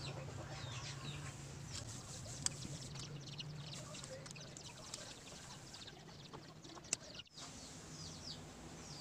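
Circlip pliers clicking sharply twice against the C-clip inside a motorcycle brake master cylinder bore, as the stubborn clip is worked at. Birds chirp repeatedly in the background over a low steady hum.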